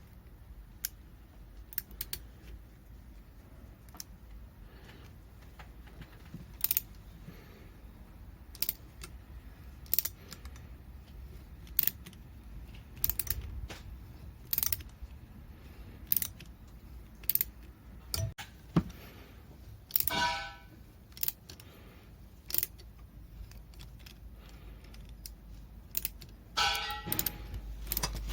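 Sharp metallic clicks and clinks of hand tools and small metal parts, one every second or two, with two longer rattling clatters about 20 and 27 seconds in.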